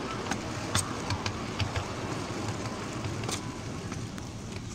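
A miniature railway train running along its track, ridden on: a steady rumble from the moving train, with several sharp, irregular clicks.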